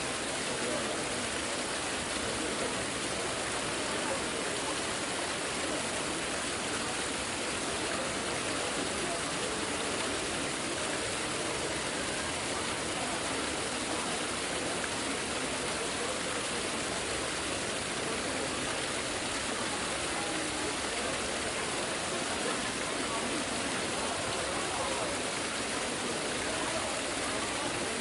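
Steady murmur of a large crowd, many voices blending into an even hiss with no single voice or event standing out.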